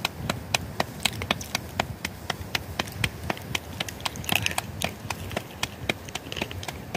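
Hands slapping a ball of flatbread dough from palm to palm to flatten it: a quick, even run of sharp claps, about four a second.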